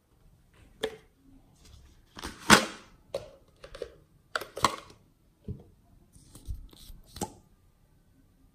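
Plastic slime container and its clear cap being handled: a series of sharp plastic clicks and short scrapes, the loudest about two and a half seconds in.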